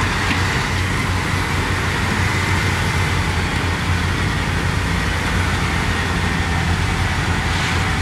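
Heavy diesel dump truck engines running steadily, one truck with its bed raised to tip a load of dirt.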